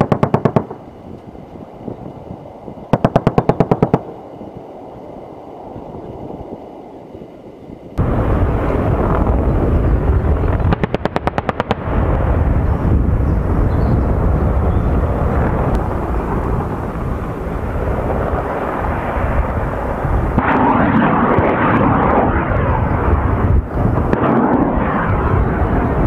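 An AH-64D Apache's 30 mm M230 chain gun firing short bursts, about ten rounds a second, heard from afar: two bursts in the first four seconds. From about eight seconds in, the helicopter's rotor and engine noise is loud and steady, with one more one-second burst of fire about eleven seconds in, and the noise grows rougher from about twenty seconds.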